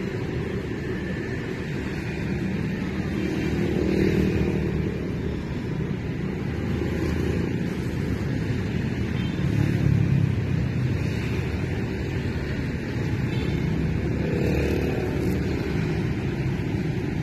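Steady background road-traffic noise that swells a few times as vehicles pass.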